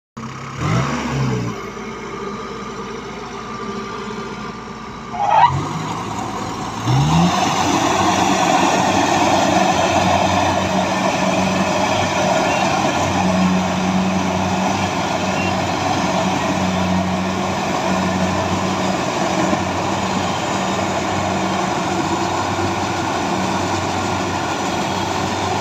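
Kubota 70 Plus rice combine harvester's diesel engine running: it revs up briefly near the start, a short rising whine sounds about five seconds in, and about seven seconds in it climbs to a louder, steady high speed that holds to the end.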